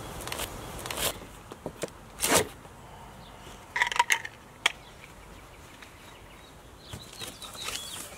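A knife slitting the packing tape on a cardboard box: a handful of short scraping rips of tape and cardboard in the first half, with gaps between them, then fainter cardboard rustling near the end as the flaps are handled.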